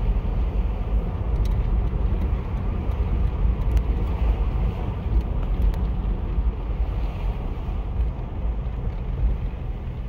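Car driving along a street, heard from the car: a steady low rumble of road and engine noise with wind buffeting the microphone.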